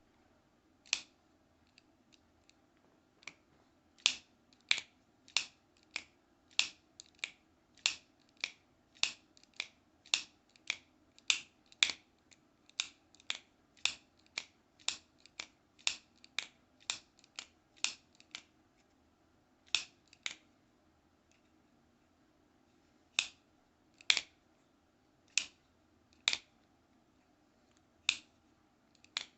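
Benchmade Griptilian folding knife being flicked open and shut over and over, its AXIS lock and blade snapping into place in sharp clicks. The clicks come about two a second through the middle stretch and thin out near the end.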